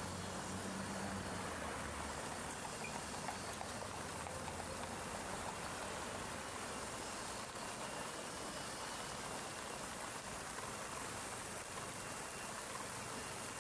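Steady splashing of a fountain, heard as an even hiss of running water under street traffic. The low engine rumble of a city bus pulling away fades out in the first second or two.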